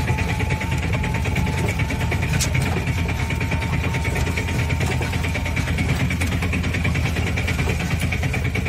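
An engine running steadily: an even low rumble with a fine rapid pulse.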